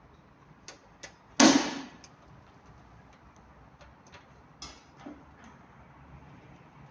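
Scattered light clicks and knocks of equipment being handled, with one louder knock about one and a half seconds in and a smaller one near the middle.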